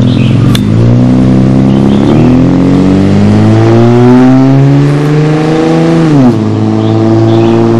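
Car engine and exhaust pulling hard under acceleration, rising steadily in pitch, then dropping sharply about six seconds in at an upshift and climbing again in the next gear.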